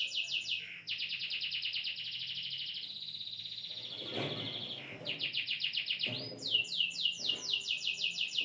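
A songbird singing in fast runs of sharply falling whistled notes, about seven a second, broken about three seconds in by a buzzy, even trill before the falling runs start again.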